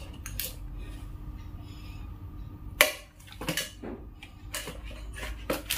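Scattered light clicks and knocks of a digital multimeter, its plastic probe leads and its zippered case being handled, the loudest about three seconds in, over a low steady hum.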